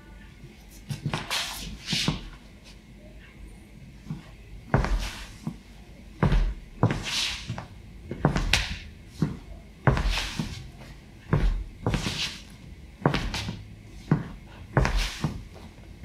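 Footsteps of a person in athletic shoes stepping and pivoting on a wooden parquet floor: irregular thuds, each with a short scuff of the sole on the wood, about every one to two seconds.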